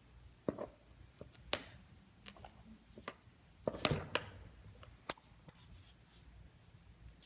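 A scattered series of sharp clicks and light taps from something being handled, the loudest cluster about four seconds in; no motor running.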